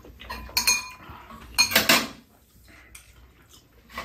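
Metal spoons and chopsticks clinking against ceramic bowls during a meal: a few short clinks in the first two seconds, one ringing briefly, then quieter scraping.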